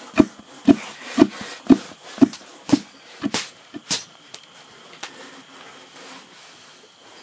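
Dried coca leaves being crushed into mambe: a long wooden pestle thudding into a tall wooden mortar about twice a second, then a few sharper knocks near four seconds in, after which the pounding stops and it is much quieter.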